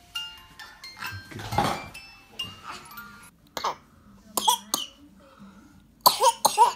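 Soft music with single held notes, then a baby's short coughing squeals and grunts, a few on their own and a loud cluster near the end.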